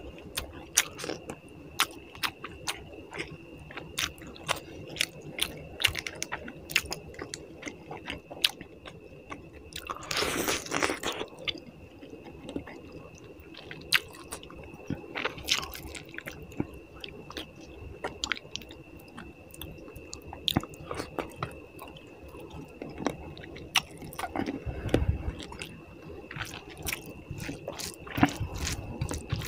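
Close-miked chewing and wet mouth smacks of a person eating rice and puti fish curry by hand, with squishing as fingers mix the rice into the gravy. A faint steady high whine sits underneath.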